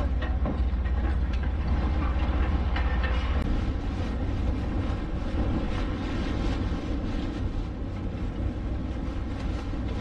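Strong wind buffeting the microphone: a heavy low rumble under a steady rushing noise, easing a little partway through.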